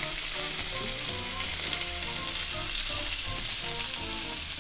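Ribeye and filet steaks searing on a flat griddle pan over a gas range: a steady frying sizzle.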